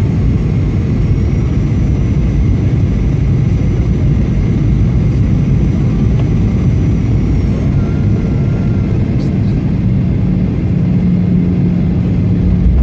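Airliner cabin noise during landing: a loud, steady rumble of engines and rushing air with a faint high whine, and a low hum that comes in about three-quarters of the way through and holds.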